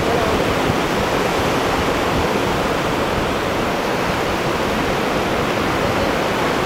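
Steady rush of surf washing up and back over a sandy beach.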